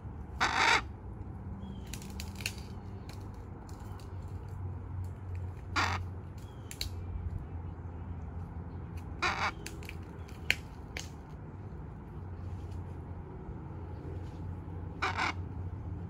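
Miligold macaw giving four short, harsh squawks, spaced several seconds apart.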